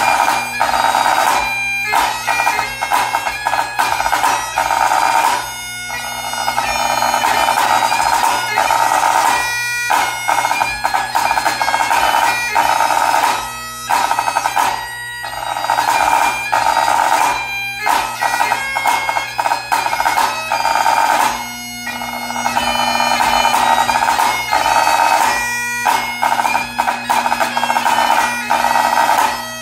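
Great Highland bagpipe playing a lively tune on the chanter over its steady drones, accompanied by a snare drum played with sticks.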